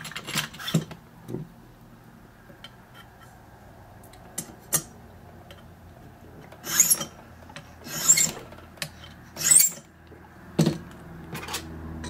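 A hand file rasps across a key blank in about five separate strokes, starting a little over six seconds in, with light clicks before them. The strokes deepen one cut of an impressioning key for a Master Lock No. 40 disc padlock.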